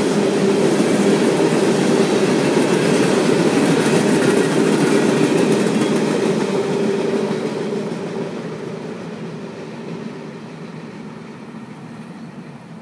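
Freight train boxcars rolling past on the rails, a steady rumble and clatter of steel wheels on track. It fades away over the second half as the end of the train goes by.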